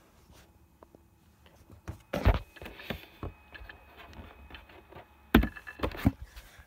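Handling noise: a few loud knocks and rubs as the phone is moved and its lens covered, the loudest about two seconds in and twice more past five seconds, with softer clicks between.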